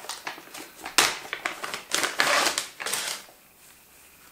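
Clear plastic packaging bag crinkling and rustling in the hands as it is opened, in several loud bursts that stop a little after three seconds in.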